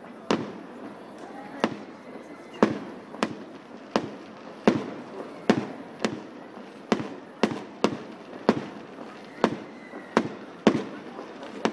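Aerial firework shells bursting in an irregular series of sharp bangs, one or two a second.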